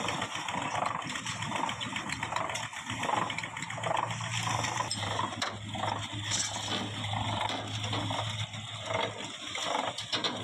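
Steel pipe mould on a wheeled rail trolley being pushed into place, with metal clanking and rattling over a steady din of machinery. A low hum comes in about four seconds in and stops near nine seconds.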